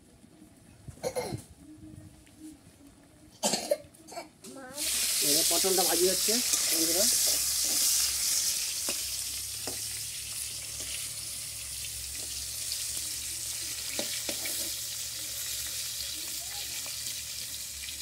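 Fish pieces dropped into hot oil about five seconds in: a sudden loud sizzle that slowly eases into steady frying.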